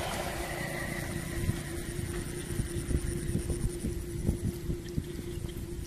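Wind buffeting the microphone: a low rumble with irregular thumps, over a steady faint hum.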